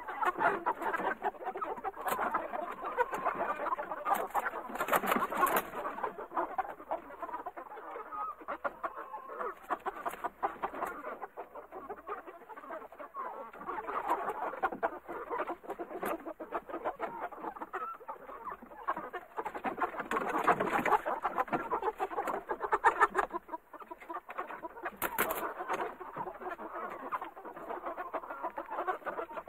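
A flock of chickens in a coop clucking and squawking continuously, many overlapping calls at once, with a few brief sharp clicks or scratches.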